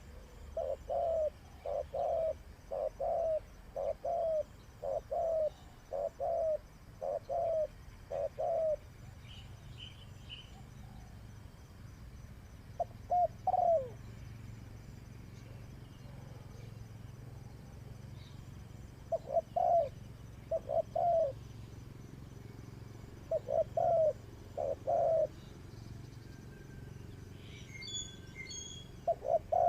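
Spotted dove cooing: a run of about nine low coos at roughly two a second, then short groups of two or three coos separated by pauses. Faint high chirps from a small bird come in briefly about ten seconds in and again near the end.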